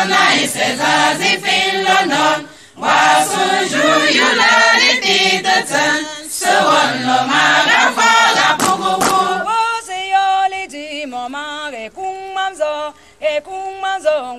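A group of voices singing together in a choral, chant-like song. About ten seconds in, the full ensemble drops away to a thinner line of single stepped notes.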